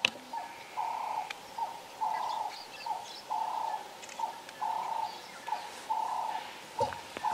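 A bird calls over and over in a steady rhythm: a short note, then a longer hooting note, the phrase repeating about every second and a quarter. A brief knock sounds near the end.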